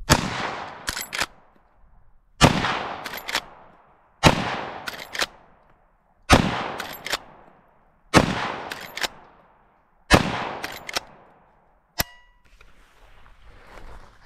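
Marlin 336Y lever-action rifle in .30-30 fired six times, about two seconds apart, each shot echoing away. About a second after each shot come two short metallic clacks as the lever is worked open and shut to chamber the next round. Near the end there is a single sharp metallic click with a brief ring.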